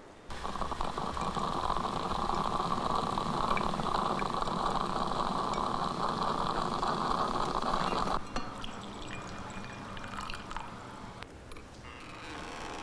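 Coffee pouring and spluttering out of the spout of a stovetop espresso maker on a gas flame into a small metal jug, a steady liquid rush that stops abruptly about eight seconds in. A few faint clicks follow.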